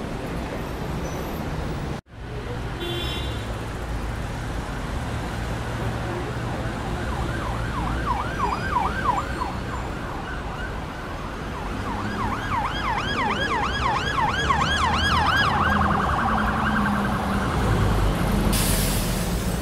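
Busy city street traffic, a steady rumble of engines and tyres, with an emergency vehicle's siren yelping in fast rising-and-falling sweeps, about four a second. The siren comes in a short spell about eight seconds in, then returns for about four seconds. The sound cuts out for an instant about two seconds in.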